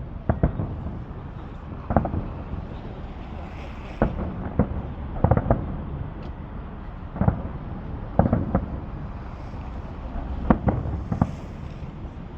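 Fireworks shells bursting overhead: about a dozen sharp bangs at uneven intervals, some in quick pairs, each with a short echo, over a steady low rumble.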